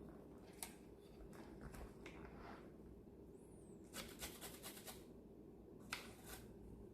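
Near silence: room tone with a few faint, scattered clicks and light rubbing.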